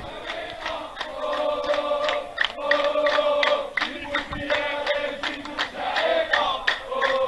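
Crowd of marchers chanting a slogan in unison, with hand claps keeping time.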